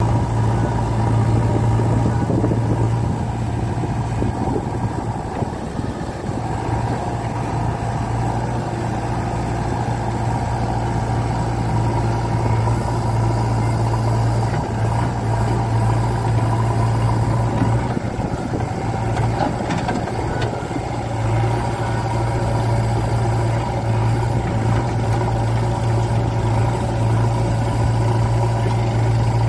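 JCB 3DX backhoe loader's diesel engine running steadily, a deep steady drone that weakens briefly a few times.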